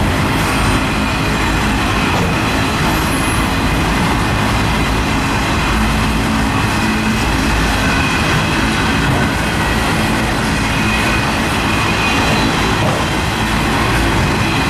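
Freight train rolling past, a steady loud rumble of the locomotives and cars on the track.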